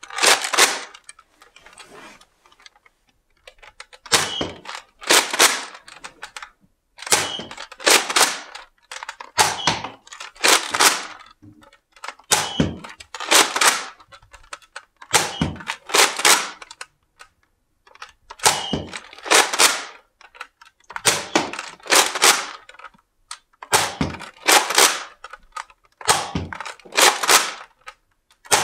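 Nerf Mega Rotofury pump-action dart blaster being primed and fired about ten times. Each shot comes as a pair of sharp plastic clacks about a second apart, a new pair every two to three seconds.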